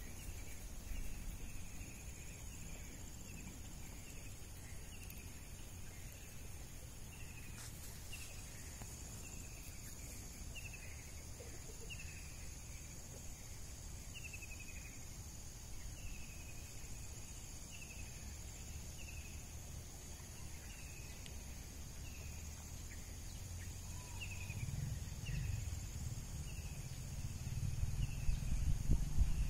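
Outdoor ambience: a steady high insect drone, with a bird repeating a short falling call about once a second. A low rumble grows louder near the end.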